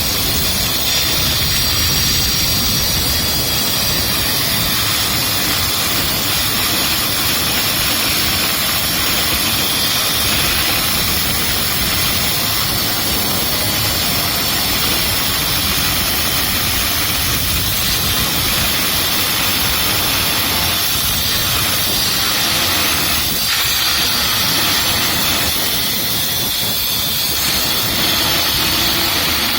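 Angle grinder with a thin cut-off disc cutting open a metal housing: a loud, steady hissing grind that runs without a break.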